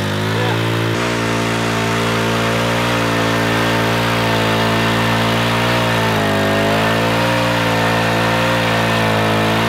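Small portable gasoline engine-driven water pump running steadily, pumping water out of a flooded sailboat's hull. Its engine speed sags briefly at the start and again about six seconds in, then picks back up.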